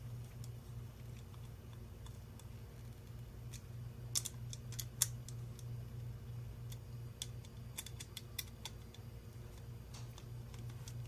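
Scattered light clicks and ticks of a screwdriver and small plastic parts being handled while a screw is driven into a 3D-printed part, the two loudest clicks about four and five seconds in, over a steady low hum.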